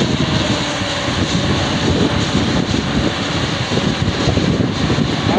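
Komatsu PC200 excavator's diesel engine running steadily while the boom lowers the bucket, with wind buffeting the microphone.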